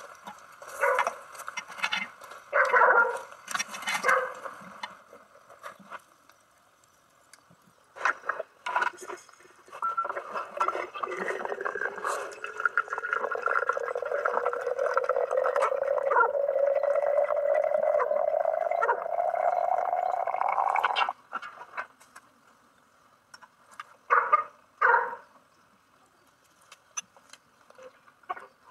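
Hot water running from a samovar's tap into a glass teapot, a steady pour whose tone rises gradually as the pot fills and cuts off suddenly when the tap is closed. A few short clatters come before it.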